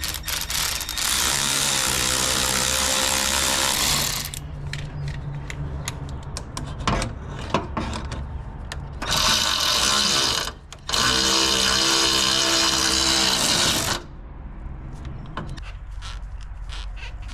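Handheld power driver tightening intercooler-piping hose clamps, running in three bursts of a few seconds each: about a second in, around nine seconds, and from about eleven to fourteen seconds. Between the bursts there are light clicks and knocks of the tool and the clamps being handled.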